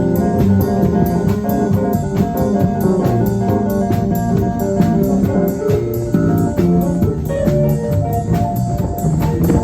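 A band playing free-form jazz rock, with sustained pitched instrument lines over a steady drum beat.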